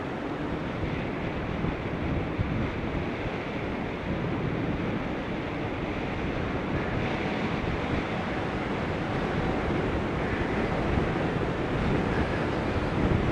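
Steady rushing noise of wind buffeting the microphone of a camera on a bicycle being ridden at speed.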